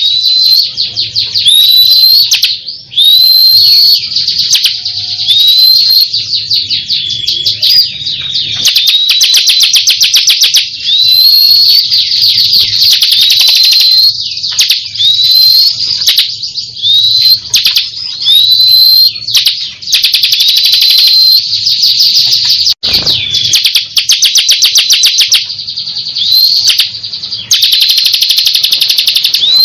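Ciblek kristal, a bar-winged prinia, singing continuously and loudly: high upslurred chirps repeated again and again, alternating with fast rattling trills of rapid, even notes.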